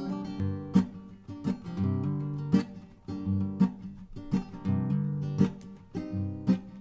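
A plucked string instrument playing, with strummed chords and single notes that ring and die away, a strong stroke about once a second.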